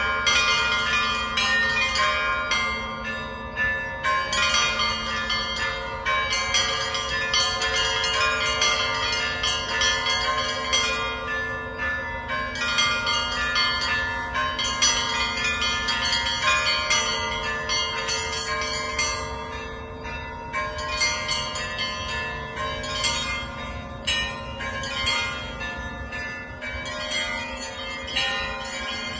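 Russian Orthodox church bells rung in a continuous festive peal (zvon). Rapid, rhythmic strikes of the small bells run over the held, ringing tones of the larger bells.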